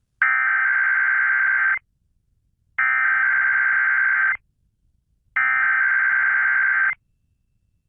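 Emergency Alert System SAME header: three identical bursts of digital data tones, each about a second and a half long with about a second between them, opening an EAS test.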